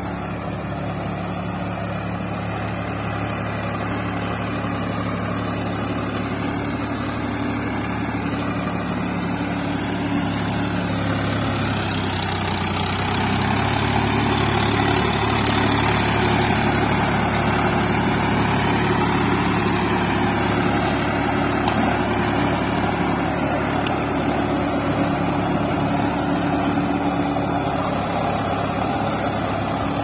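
Indo Farm tractor's diesel engine running steadily under load as it pulls and drives a rotavator tilling the soil; it gets louder about halfway through as the tractor comes close.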